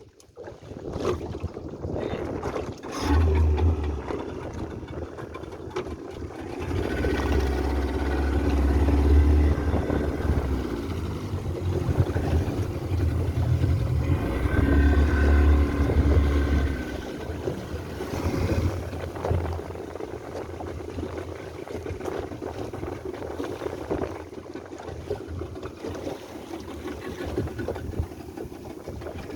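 A motorboat engine running steadily, getting louder twice, with wind buffeting the microphone in gusts.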